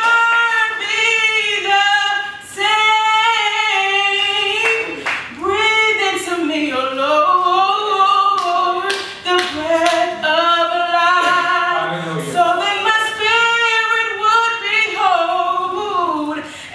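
A woman singing a gospel solo into a microphone, largely unaccompanied, her long held notes sliding up and down in pitch, with a few hand claps.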